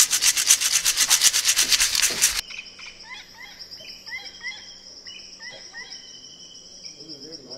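A loud rhythmic rasping, about seven strokes a second, cuts off abruptly about two and a half seconds in. After it, insects trill steadily at a high pitch while birds give short rising chirps.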